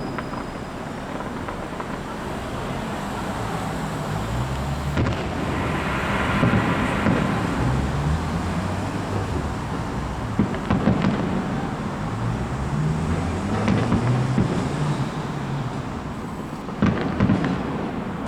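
Fireworks going off: a continuous rumble of echoing low booms, with sharper bangs about five seconds in, around eleven seconds and near the end.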